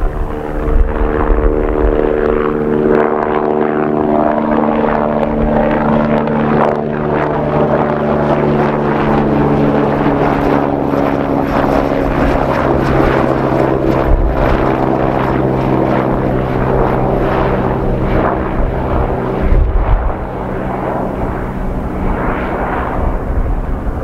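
Agusta Westland AW109SP twin-turbine helicopter lifting off and flying past, its rotor and engine hum steady and loud, the pitch sliding down as it passes and climbs away. Gusts of wind rumble on the microphone about a second in, around twenty seconds in and near the end.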